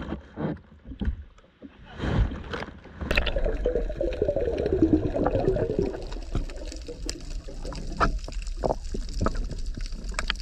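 Water splashing and sloshing as a snorkeling spearfisher ducks under the surface, then bubbles gurgling around the diver, then muffled underwater ambience with a steady low rumble and scattered sharp clicks.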